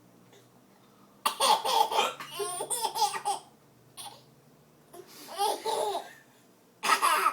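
Ten-month-old baby laughing hard in three bouts, the first and longest starting about a second in.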